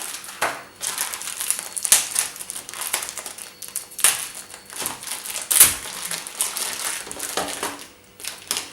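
Toy packaging being pulled open and handled, with irregular crinkling and crackling of plastic and cardboard and a quieter spell near the end.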